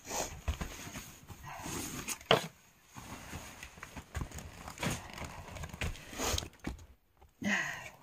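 Scattered knocks, thumps and rustling as someone moves about indoors handling outdoor gear, with one sharper knock about two seconds in.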